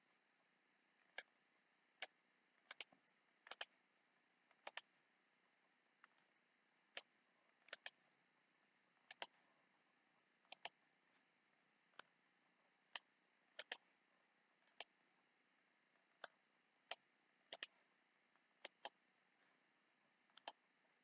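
Faint computer mouse clicks, some single and some in quick pairs, at irregular intervals, over near silence.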